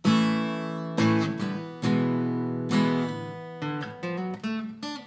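Acoustic guitar playing an intro: strummed chords about once a second, then quicker single picked notes in the second half.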